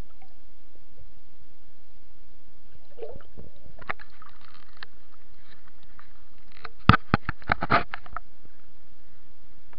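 Water splashing as a hooked perch is pulled up out of the water, then a quick cluster of sharp knocks and rattles about seven seconds in, over a steady hiss.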